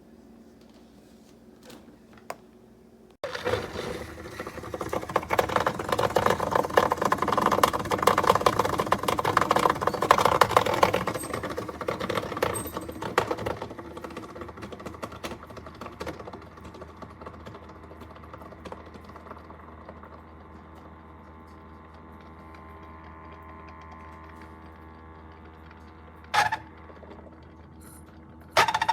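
Electric blade coffee grinder, the Black & Decker CBG110SC, switched on about three seconds in: a loud crunchy rattle of beans being chopped over the motor's steady whine, easing after about ten seconds into a smoother, quieter run as the grounds get finer, then two short pulses near the end.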